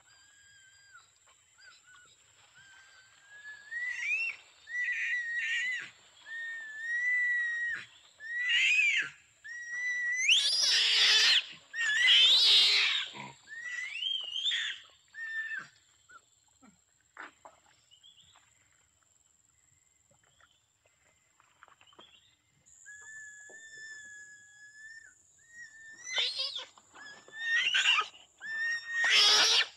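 Orangutan calling: a run of whistle-like squeaks, some held and some rising in pitch, broken by loud harsh squeals about ten and twelve seconds in and again near the end, with a lull in the middle. A faint steady high tone runs underneath.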